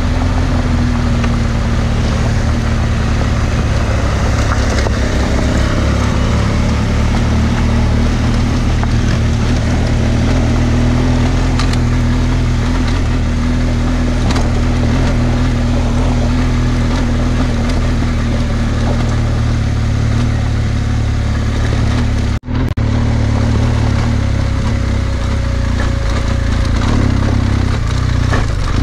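BMW R1200GS Adventure boxer-twin engine running at steady low revs while riding over loose gravel, with tyre and wind noise. The sound cuts out for a split second about 22 seconds in.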